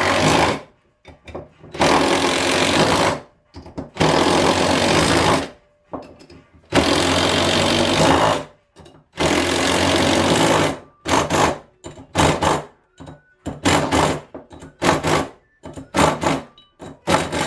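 Impact wrench hammering in five long bursts of about a second and a half each, then a run of short, quick bursts near the end. It is driving 5/16 hex thread-forming bolts into the oversized, untapped holes of a new Leslie RS power chamber nozzle housing, forming the threads for the back cap.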